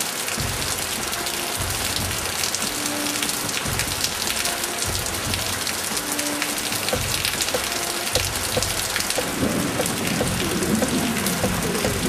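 Heavy rain pouring onto standing water on a street: a dense, steady patter of drops splashing on the flooded surface.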